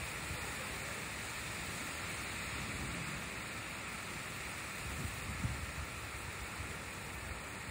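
Heavy storm rain falling steadily, with water streaming off a roof edge, in a windstorm. A gust of wind buffets the microphone about five seconds in.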